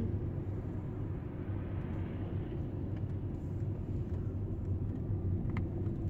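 Steady low rumble of a car's engine and tyres heard from inside the cabin.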